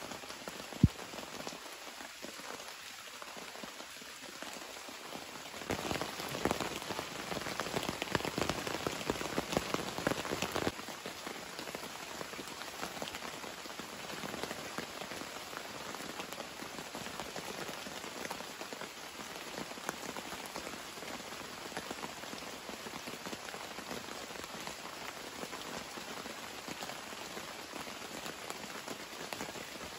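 Heavy rain falling steadily, a dense hiss full of individual drop ticks, growing louder and denser from about six to eleven seconds in. A single sharp tap stands out less than a second in.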